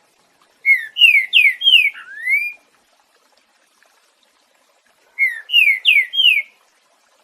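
Green-winged saltator (trinca-ferro) singing the 'boiadeiro' song type: two loud phrases of clear whistled notes a few seconds apart. The first phrase has five quick notes that each slide downward, ending on one rising note; the second has four falling notes.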